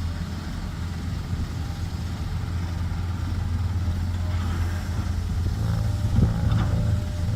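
Heavy diesel engine of an excavator or dump truck running steadily and growing slowly louder, with a few sharp knocks near the end.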